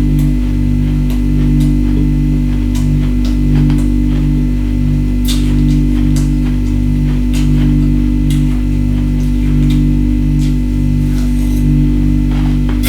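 Background music with a steady, pulsing low bass line, with a few short, sharp sounds scattered over it.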